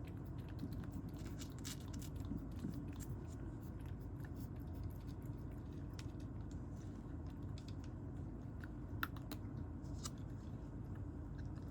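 A cat crunching dry kibble: a run of small irregular crunches and clicks as it chews.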